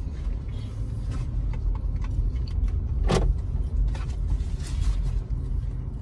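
A car moving slowly, heard from inside the cabin: a steady low engine and road rumble with small scattered clicks and rattles. A brief louder swish comes about three seconds in.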